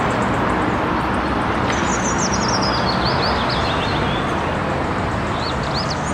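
Street traffic noise as a red single-decker city bus drives past and away, a steady rumble throughout. Small birds chirp in short high bursts over the top.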